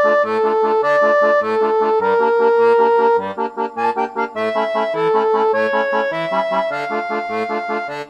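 Background music: a melody in long held notes over a steady bass-and-chord accompaniment, breaking off abruptly near the end.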